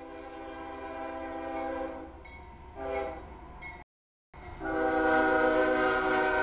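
Air horn of a CSX freight locomotive sounding for a grade crossing as the train approaches: a long chord-like blast, a short one, then a louder long blast as the locomotive reaches the crossing. The sound cuts out briefly about four seconds in.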